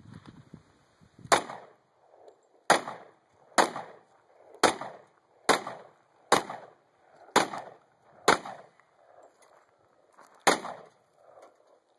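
Nine shots from a Smith & Wesson M&P40 pistol firing .40 S&W rounds, about one a second, with a pause of about two seconds before the last shot.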